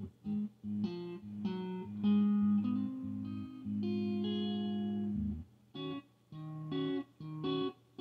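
Electric guitar played through a Fender Deluxe Reverb amp at bedroom volume over a looped bass line: held chords and notes for about five seconds, then short, choppy chords in a quick, even rhythm.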